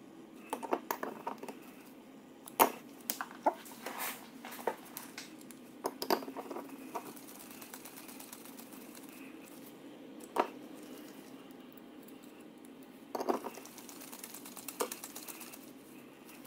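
Irregular light clicks and taps of small aluminium socket-head screws, a hex driver and carbon-fibre frame plates being handled while the screws are driven into a racing drone frame, with a quieter spell in the middle.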